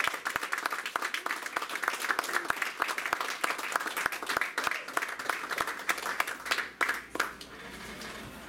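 Audience applauding, a dense patter of hand claps that dies away about seven seconds in.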